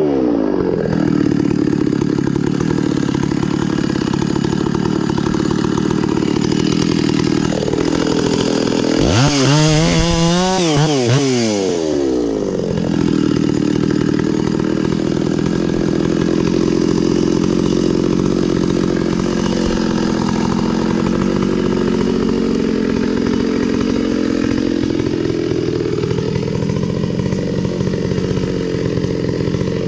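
Stihl 066 Magnum two-stroke chainsaw, freshly rebuilt top end, cutting through wood with the engine pulled down under load. About 8 s in it revs up to a high scream out of the cut, then drops back under load about 12 s in, the pitch wandering near the end as the cut goes on.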